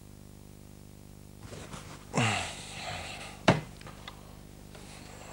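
A steady low electrical hum. From about a second and a half in it gives way to a jumble of knocks and rustles, with a falling swoop about two seconds in and one sharp knock about three and a half seconds in.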